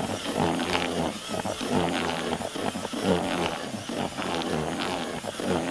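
Cordless drill with a wire mixing whisk churning damp groundbait in a plastic bucket, its motor pitch rising and falling.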